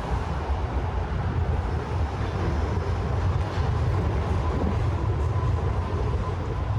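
Steady, loud, low mechanical rumble, with a faint steady whine above it.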